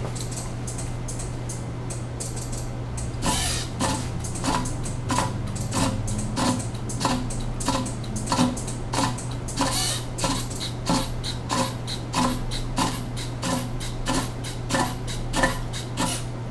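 Small hobby robot's mechanism clicking repeatedly, roughly twice a second, as it moves its arms, over a steady low hum. The clicking starts about three seconds in and stops shortly before the end.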